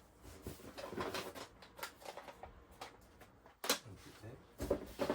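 Handling of unpacked items, cassette tapes and cables: rustling with a few sharp plastic clacks as things are picked up and set down, the loudest near the end.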